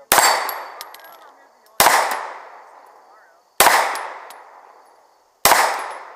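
Pistol shots fired from a semi-automatic handgun: four evenly spaced shots, a little under two seconds apart, each trailing off in a long echo.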